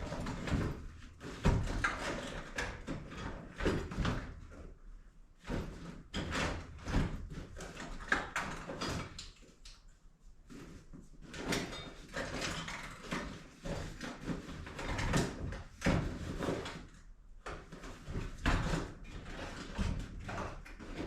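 Rummaging through tools: irregular knocks, clatter and thuds as objects are moved about and cases or drawers are opened and shut.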